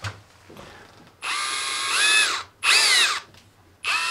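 Cordless drill spinning a drill-mounted grinding wheel, run in short trigger pulls: it spins up and winds down twice, then starts a steady run near the end. A motor whine that rises in pitch as it spins up and falls as it stops.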